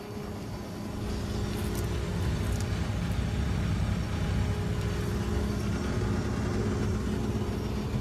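Mitsubishi Electric MXZ-2A20NA-2 mini-split heat pump outdoor unit running: a steady hum of several low tones with fan noise, growing louder in the first second.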